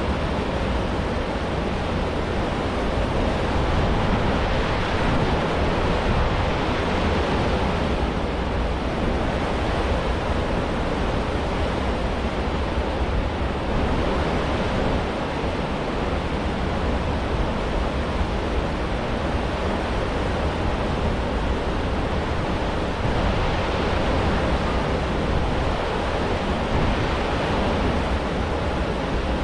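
Steady rushing of a large cruise ship's churning, foaming stern wake, with a low rumble underneath.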